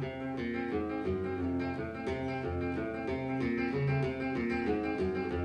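Background music: an acoustic guitar playing plucked notes over a bass line.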